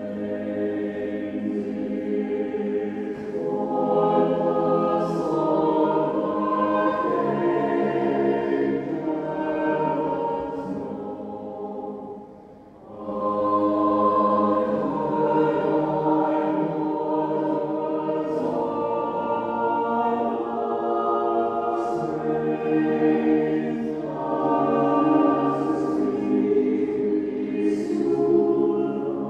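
Church choir singing slow, held phrases, with a short break between phrases about twelve seconds in.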